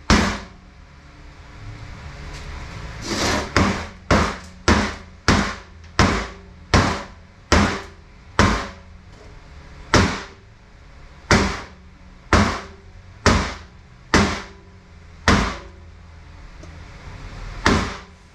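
About twenty sharp metal knocks, mostly half a second to a second apart with a longer gap near the end, as two pistons of a Mercedes 722.6 automatic transmission are knocked apart during teardown.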